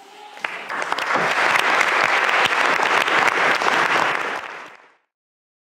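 Audience applauding, starting just as the last piano note dies away, swelling within about a second into steady clapping, then fading out about five seconds in.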